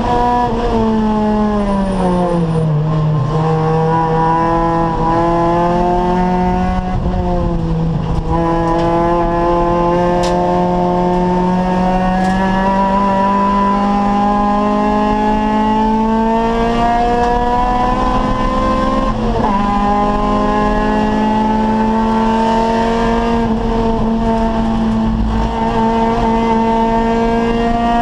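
Acura Integra race car's four-cylinder VTEC engine pulling hard on track. The revs fall over the first few seconds, then climb steadily, with a quick drop at about eight seconds and again at about nineteen seconds as it shifts up, climbing again after each.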